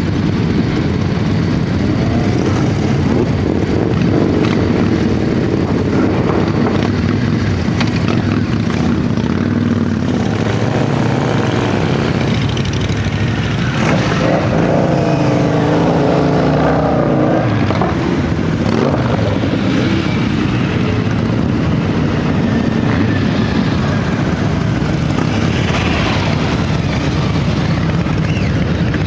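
Many motorcycle engines, a mix of cruisers and sport bikes, running together as a long procession rides past at low speed, in a steady din. The engine notes of single bikes rise and fall as they pass, most plainly about halfway through and again near the end.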